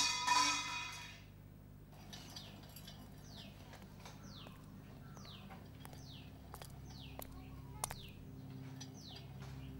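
A steel tumbler clangs onto a stone floor and rings for about a second. Then a bird calls over and over, a short falling chirp about every half second to second.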